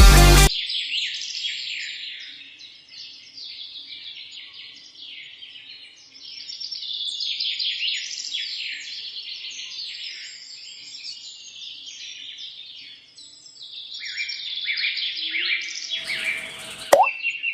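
A flock of small birds chirping and twittering together, many quick overlapping calls, after music cuts off about half a second in.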